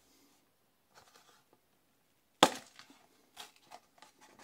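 Cardboard food box being handled, with one sharp snap about halfway through as its press-to-open tab is pushed in, followed by a few fainter clicks and rustles of the card.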